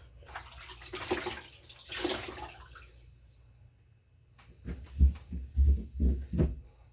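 Wet cloth wiping inside a refrigerator: two long swishing strokes, then a run of low dull thumps about twice a second as the scrubbing goes on.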